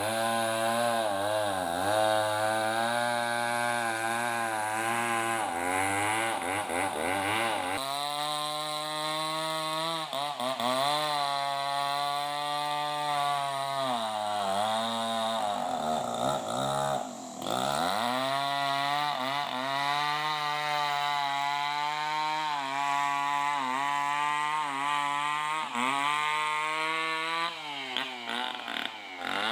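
Two-stroke chainsaw cutting through a large felled log, trimming it. The engine runs at high revs that waver up and down as the chain bites into the wood. About halfway through, the revs sag sharply under load and then pick back up.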